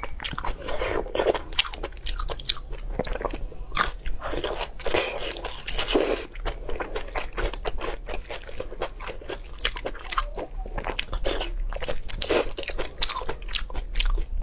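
Close-miked eating sounds: crunchy food being bitten and chewed, a dense, uneven run of crisp crunches.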